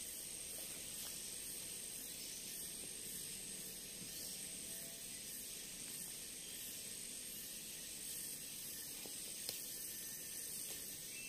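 Steady chorus of forest insects: a continuous high hiss with a thin, unchanging whine above it, and one faint click near the end.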